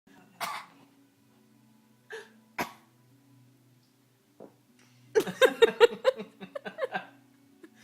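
Short coughs, a baby copying her father's cough: one about half a second in and two more about two seconds in. They are followed, about five seconds in, by roughly two seconds of rapid laughter.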